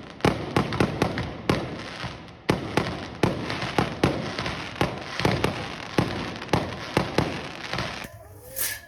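Fireworks going off in a rapid, irregular string of sharp bangs, two or three a second, dying down near the end.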